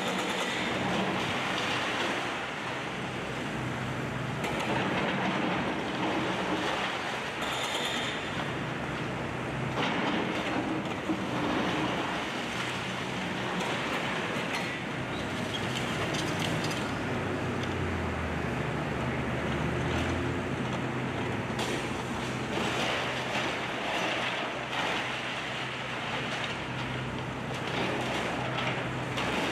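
Hitachi hydraulic excavator's diesel engine running under load as its arm tears into a brick house wall, with a steady din of crunching, cracking and falling brick, wood and debris.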